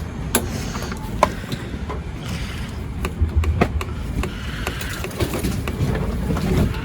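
Wind buffeting the microphone in an uneven low rumble, with scattered light clicks and knocks of parts being handled.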